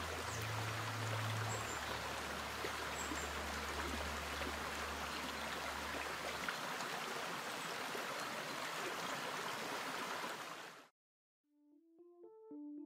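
Steady rush of flowing stream water, with a low hum beneath it for the first half. It cuts off suddenly about eleven seconds in, and a few notes of music start near the end.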